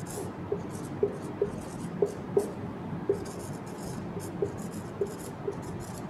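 Marker pen writing on a whiteboard: a run of short, uneven scratchy strokes with brief squeaks.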